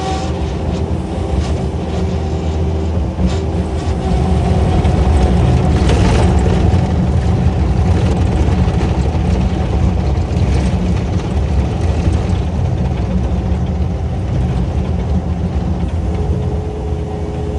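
A heavy engine running steadily and loudly, with a brief burst of noise about six seconds in.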